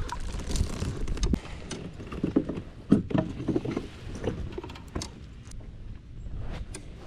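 Irregular knocks, clicks and rattles of gear being handled in a kayak, over a low rumble.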